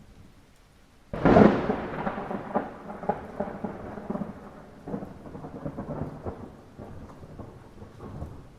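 A thunderclap breaks suddenly about a second in, then crackles and rolls on as a rumble that slowly fades over several seconds. Beneath it runs a faint steady hiss of light rain.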